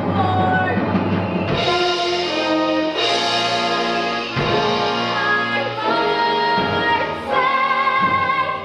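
A girl's solo singing voice with orchestral accompaniment, the closing phrase of a musical-theatre song, ending on a long held note with vibrato near the end.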